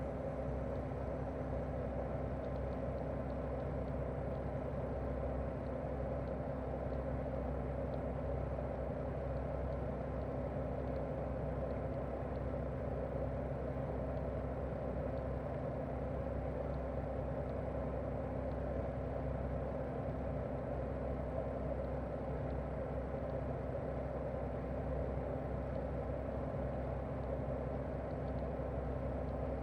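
Daikin R28RMV mini-split outdoor unit running in heating mode: its twin-cylinder swing compressor and propeller fan give a steady hum that holds the same speed throughout.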